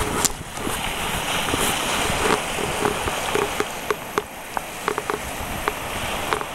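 Shallow water washing and splashing around a rocky shoreline as a plastic sit-on-top kayak is pushed out by hand through small waves. A scatter of light clicks and knocks sounds over the wash from about two seconds in.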